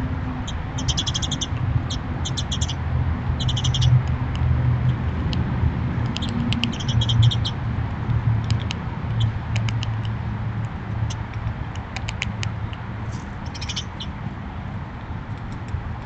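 Bursts of rapid, high clicking chirps from a small animal, repeated several times, over a low steady hum.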